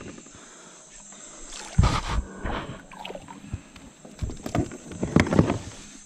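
Irregular knocks, bumps and scrapes against a plastic kayak hull while a freshly landed fish is handled on board. There are two louder thumps, about two seconds in and again near the end, with a steady faint high insect buzz underneath.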